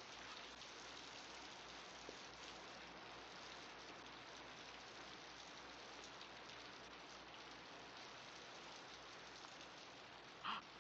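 Faint, steady rain on a film soundtrack, with one brief sharper sound near the end.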